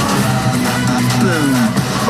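Trailer background music, steady and driving, with a brief falling tone a little past the middle.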